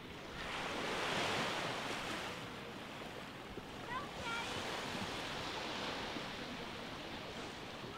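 Small waves breaking and washing up a sandy beach, a swell of surf about a second in and another near the middle. Faint distant voices and squeals of people playing in the water.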